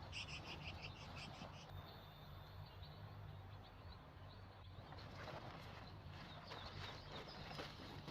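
Quiet pine-forest ambience. A bird gives a quick run of high chirps in the first second and a half, then a thin steady high whine holds for about three seconds, and from about five seconds in there is rustling and light steps on the forest floor.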